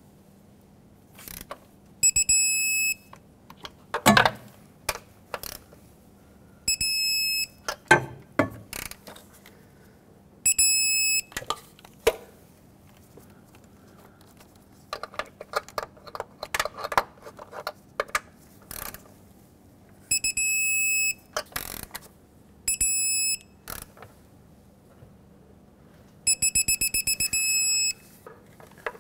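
Digital torque wrench beeping as each valve cover bolt reaches its set torque of 89 inch-pounds: six high, steady beeps, each about a second long, the last one a rapid pulsing beep. Short clicks and knocks from the wrench fall between the beeps.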